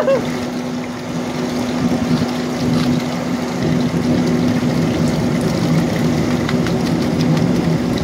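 Water rushing and churning in a concrete channel, with a steady low machine hum running under it.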